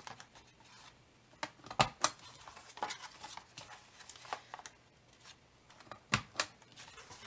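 Stampin' Up! Envelope Punch Board's punch pressed down through cardstock to round a box corner, giving a pair of sharp clicks about two seconds in and another pair about six seconds in, with light paper handling between.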